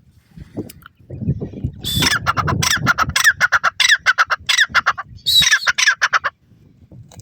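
Grey francolin (teetar) calling: a fast run of harsh, repeated notes starting about two seconds in, a brief break, then a second short run near the end.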